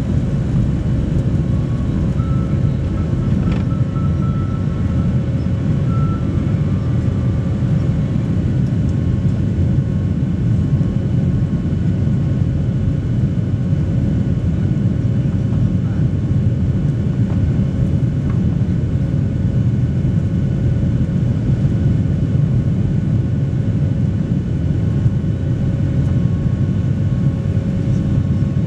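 Boeing 737 Next Generation's CFM56-7B turbofan engines at high thrust during takeoff and initial climb, heard from inside the cabin over the wing. A steady, loud rumble carries a few faint, steady whining tones.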